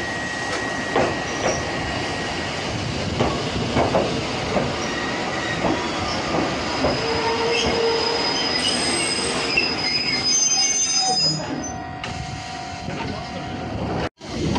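Choshi Electric Railway train rolling into the platform and coming to a stop. Wheels clack over rail joints in the first half, then squeal in thin high tones as it slows in the second half.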